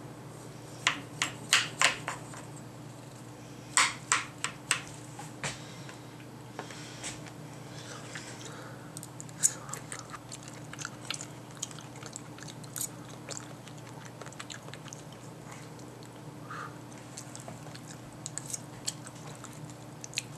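A metal pie server cuts through a baked pie crust and knocks and scrapes against the glass pie dish, making loud sharp clicks in two clusters within the first five seconds. Quieter scattered clicks and chewing follow as a slice is served onto a paper plate and eaten. A faint steady hum runs underneath.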